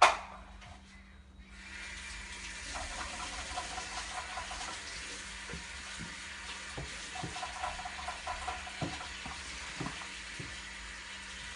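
A steady hiss starts about a second and a half in. Over it come soft, scattered thumps as a cat kicks and bats a plush spring toy mounted on a cushioned pad.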